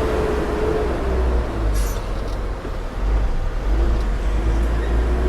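Lorry engine heard from the cab with a low drone. Its pitch drops about a second in and climbs again near four seconds as the revs change. A brief hiss comes about two seconds in.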